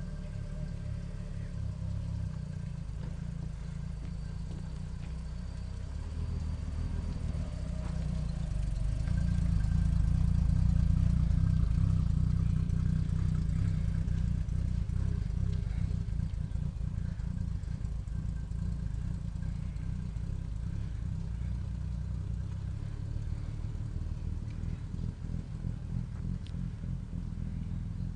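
Jaguar XK120's 3.4-litre twin-cam straight-six running with a low, steady rumble that grows louder to a peak about ten seconds in and then eases off.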